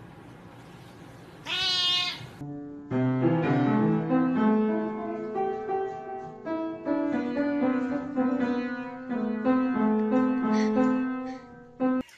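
A cat meows once about a second and a half in. Then an upright piano sounds a run of separate notes, pressed by a cat standing on the bench with its paws on the keys, until the notes stop just before the end.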